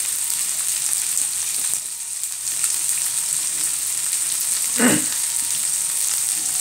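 Whole shell-on prawns frying in hot oil in a nonstick frying pan, with no water added: a steady sizzling hiss with small crackles. About five seconds in there is one brief louder sound.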